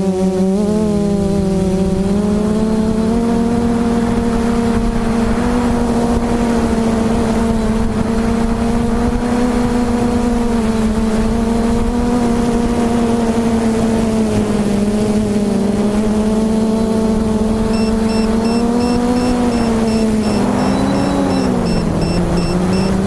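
Quadcopter's four MT2814-10 770KV brushless motors spinning Xoar 10x6 propellers, heard from the onboard camera: a steady buzzing hum whose pitch wavers with throttle and dips briefly near the end. In the last few seconds a rapid high electronic beeping joins it.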